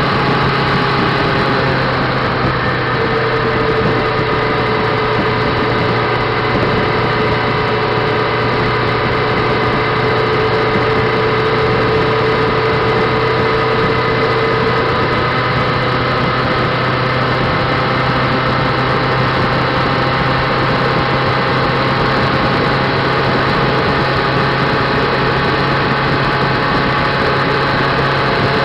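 Motorcycle engine running at a steady cruise, with wind and road noise, heard from the handlebar dash behind the fairing. The engine note holds nearly constant, shifting slightly about halfway through.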